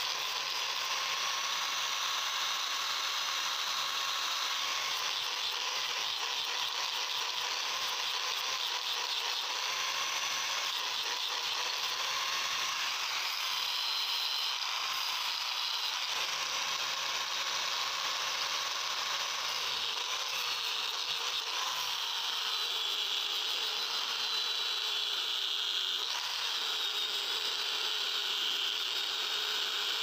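Steady, unbroken rasping noise of abrasive tool work on metal, dense and continuous with a fine rapid rattle in it.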